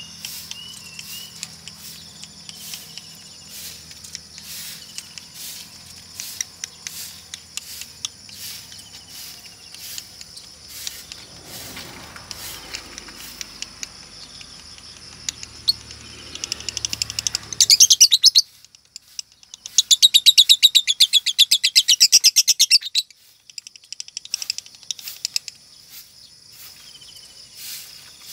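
Female Fischer's lovebird chirping, with sharp calls repeating over and over. About two-thirds of the way in it breaks into a loud, rapid rattling trill, first briefly and then for about three seconds: the long chattering song that hobbyists take as a sign of a 'konslet' female.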